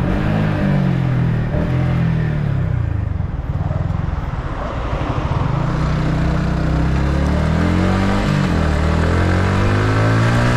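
Yamaha MT-15's single-cylinder 155 cc engine with stock exhaust, heard onboard while riding. The engine note drops away and goes rougher about three seconds in, then rises again as the bike accelerates, with brief dips in pitch near the end that fit gear changes.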